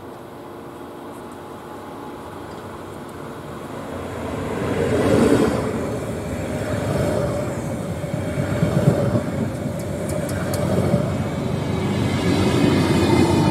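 PKP Intercity ED160 (Stadler FLIRT) electric multiple unit running into the station along the platform. A low rumble builds and peaks as the cab passes about four seconds in, then the carriages roll by with a steady hum and a few sharp wheel clicks.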